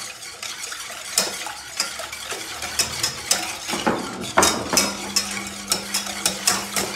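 Wire whisk beating milk in a stainless steel saucepan, its wires clicking and scraping against the metal pan in quick irregular strokes, stirring sugar and yogurt into cold milk until the sugar dissolves.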